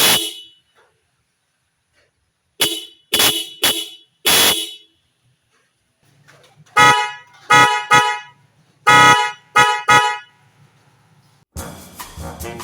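Car horns honked in short blasts: five honks, then after a pause six more with a fuller, multi-tone sound. Music comes in near the end.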